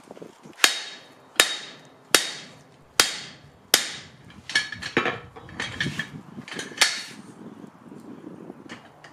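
Hand hammer striking the top die of a blacksmith's guillotine tool clamped on hot steel: five ringing metal blows about 0.8 seconds apart. After that come a few lighter metal clanks and one sharp clank near seven seconds as the hammer is laid down and the workpiece is handled with tongs.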